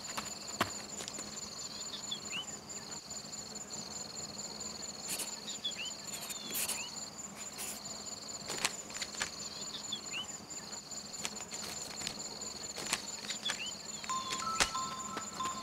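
Insects trilling steadily in a high, unbroken drone, with scattered short rising chirps and light clicks over it. Near the end a few bell-like music notes come in.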